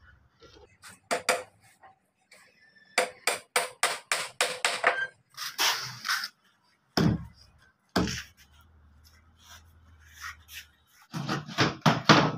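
Hammer nailing a wooden table frame: a couple of strikes, then a quick run of blows at about four a second, then two heavy thuds and a last cluster of hard blows.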